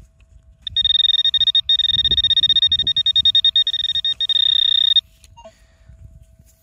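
Metal-detecting pinpointer's buzzer sounding a steady, high-pitched, rapidly pulsing buzz for about four seconds, breaking off briefly twice: the probe is on a metal target in the dig hole.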